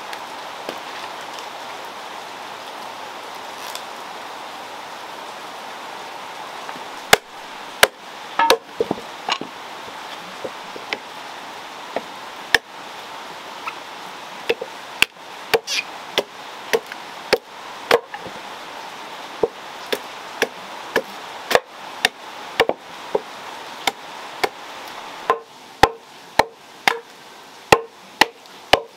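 A steady hiss for the first several seconds, then a machete chopping a piece of wood on a log block into splints: sharp single chops, irregular at about one a second, quickening to about two a second near the end.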